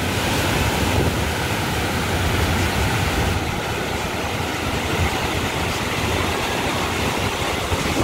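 Waterfall water rushing and crashing over rocks, a steady roar of noise, with wind rumbling on the microphone.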